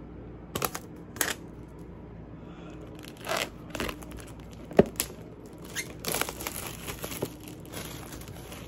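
Clear plastic shrink wrap being torn off an Apple iPad Air box and crinkled in the hands, in a series of short tearing and crinkling bursts with a sharp click about halfway through.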